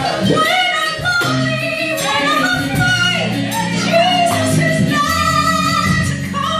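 Live gospel music: a solo voice sings sliding runs over the band's held chords and bass line.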